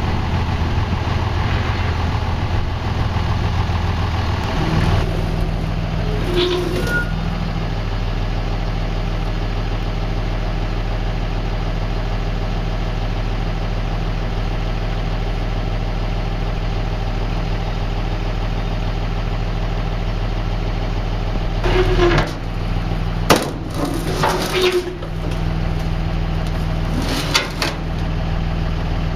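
Vehicle engine idling steadily, its note shifting once about five seconds in. A few brief knocks come about three-quarters of the way through.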